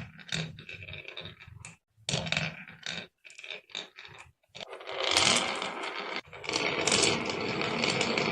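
Marbles clicking and rolling down a wooden marble run: short clattering runs broken by brief pauses, then a continuous rolling rattle with clicks from about four and a half seconds in.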